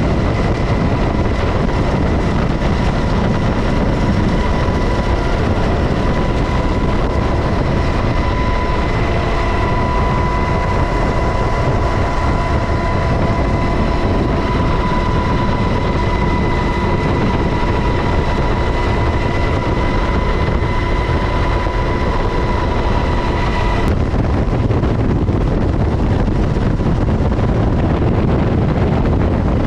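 UH-60 Black Hawk helicopter running loud and steady: a constant heavy rumble of rotor and engine with a high turbine whine over it. The whine cuts off suddenly about 24 seconds in, leaving only the rumble and wind-like rush.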